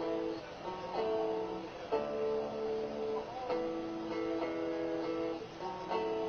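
Background music on guitar, with plucked chords that change every second or so.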